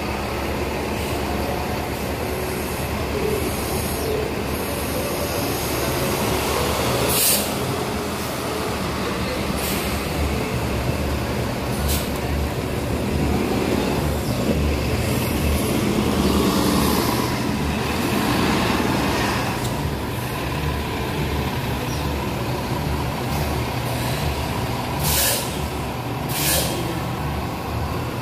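City transit buses running and pulling away, a steady heavy engine rumble that swells in the middle. Air brakes let out short, sharp hisses several times.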